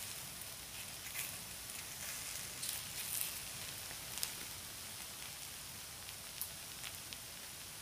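Takoyaki batter balls sizzling in a Nichinen electric takoyaki maker: a steady hiss with scattered small pops and crackles.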